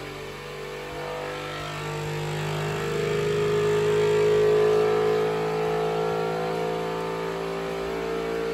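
Flashforge Adventurer 5M CoreXY 3D printer running its automatic vibration calibration: the motors hum and buzz in several held tones that shift slowly in pitch. The sound swells louder about halfway through, then eases a little.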